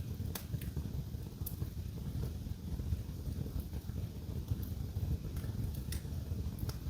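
Wood fire in a fireplace crackling: a few sharp pops over a steady low rumble.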